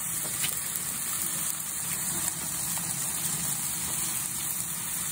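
Steady sizzling hiss of country-style ribs cooking over the lit burners of a gas grill, with a low, even hum underneath.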